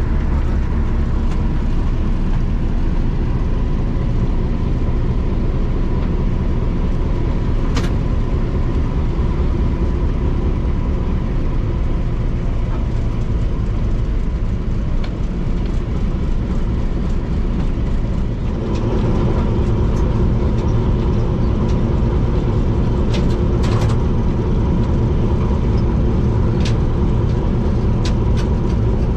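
PHA-20 diesel-electric locomotive engine running steadily, with a thin steady whine over it. About eighteen seconds in the engine note steps up and gets louder, with a few sharp clicks later on.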